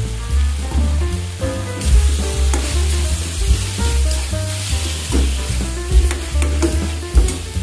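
Chicken pieces with lemongrass and chillies sizzling as they stir-fry in a hot pan, a metal ladle scraping and clacking against the pan as it turns them. The sizzle grows louder about two seconds in, once the stirring starts.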